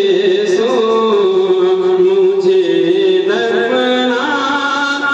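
A man singing a naat, an Urdu devotional poem in praise of the Prophet, solo into a microphone over a public-address system. He draws out long held notes that slide and turn between pitches.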